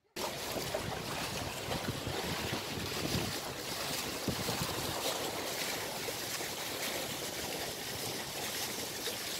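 Water rushing and splashing along the hull of a moving catamaran, with wind buffeting the microphone; a steady noise.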